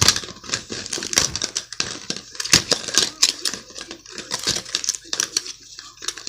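Crinkling and rustling of packaging and cards being handled, with many quick irregular clicks and taps.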